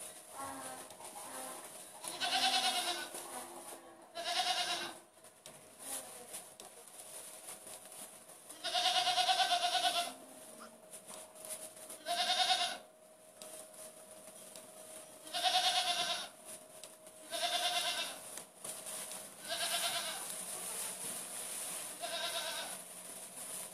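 Goat kids bleating again and again: about eight high, wavering bleats a second or more apart, one held for about a second and a half near the middle.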